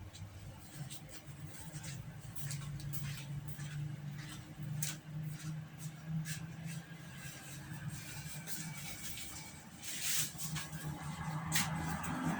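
Faint scattered clicks and rustling from handling the laptop-stand fan parts and cleaning tissue, over a low steady hum.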